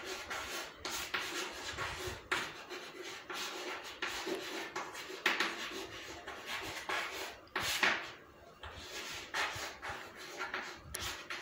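Chalk scratching on a chalkboard as words are written, in short, irregular strokes with small taps.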